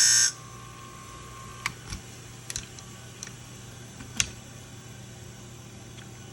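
A scissor blade's pass on the honing wheel of a Wolff Twice As Sharp sharpening machine stops abruptly just after the start. The machine's motor keeps humming steadily, with a few light clicks scattered through.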